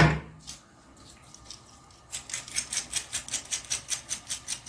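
A light knock, then about two seconds in a run of even, light clicks, about seven a second, as the bolt assembly of a toilet seat hinge is threaded into the bottom of the hinge.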